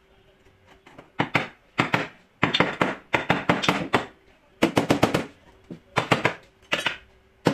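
Small body hammer tapping the dented rear quarter panel of a Ford Taurus, in quick bursts of several sharp strikes with short pauses between, as the dent is worked level.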